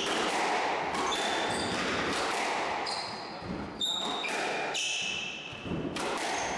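Squash rally: the ball cracks off rackets and the court walls several times, echoing in the enclosed court. Shoes give short high squeaks on the wooden floor between shots.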